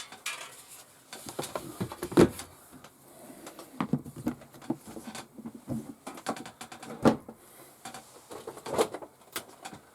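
Hands handling paper sheets and box packaging: irregular rustles, taps and knocks, the loudest a sharp knock about two seconds in.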